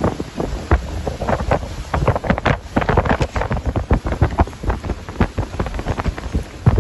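Gusty wind buffeting the microphone in rapid, irregular low thumps over a steady rush of wind.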